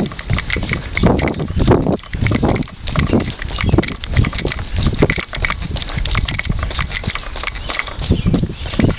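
A runner's footsteps on wet asphalt, a steady rhythm of about two strides a second, picked up by a handheld camera that jolts with each stride.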